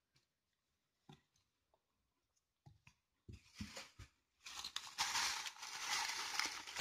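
A few light knocks and clicks of objects being set down, then about four and a half seconds in a thin plastic bag starts crinkling and rustling loudly as it is handled.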